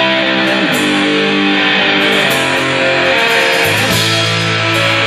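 Loud live band music led by an electric guitar, with long held notes that change about once a second.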